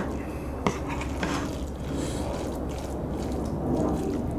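Wooden spoon stirring and scraping rice in a hot stone bowl of dolsot bibimbap, with two sharp clicks of the spoon against the bowl in the first second.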